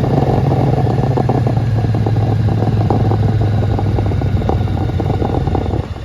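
Motorcycle engine running at a steady pitch while riding, with a rough rattle over it; it drops in level just before the end as the bike eases off.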